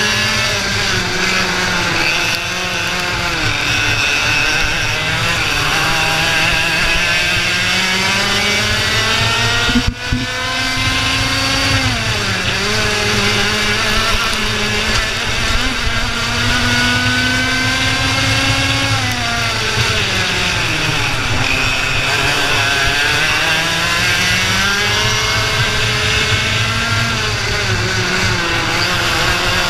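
IAME Leopard 125cc two-stroke kart engine at racing speed, heard from the driver's helmet camera: the pitch climbs along the straights and drops each time the driver lifts for a corner, over steady wind noise. A sharp knock with a momentary drop in sound comes about ten seconds in.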